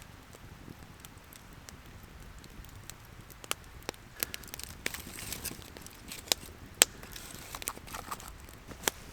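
Campfire crackling: irregular sharp pops and snaps over a faint hiss, with a couple of louder cracks near the end.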